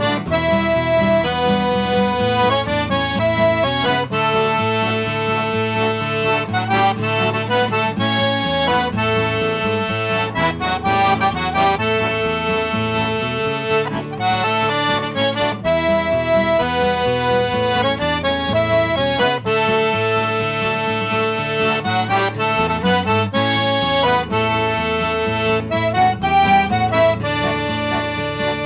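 Diatonic button accordion playing a waltz melody of held notes, over a steady low accompaniment from an acoustic guitar.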